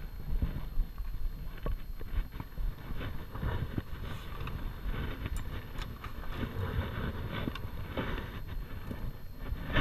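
Wind buffeting an action camera's microphone, with rustling and scattered light knocks as the camera housing rubs against clothing and the boat.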